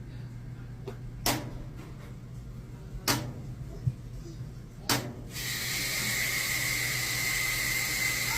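Three sharp clicks, about two seconds apart, then a steady hiss with a faint high whistle starts abruptly about five seconds in.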